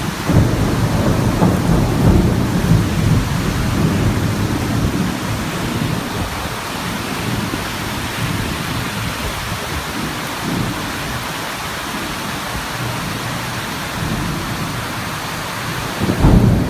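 Heavy rain falling steadily, with thunder rumbling low through the first few seconds and again near the end.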